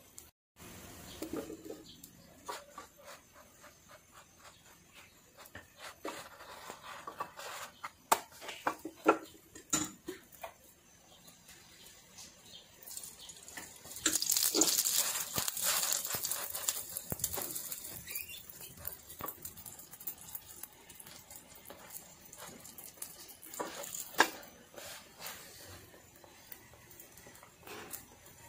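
Paratha cooking on a nonstick tawa: soft taps and scrapes of a silicone spatula pressing the dough against the pan, with a stretch of sizzling hiss about halfway through.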